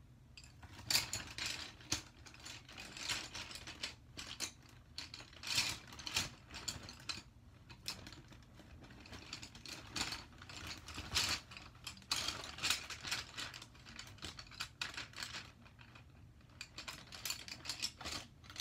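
Irregular bursts of clicking and rattling from small hard objects being handled, with short pauses between the bursts.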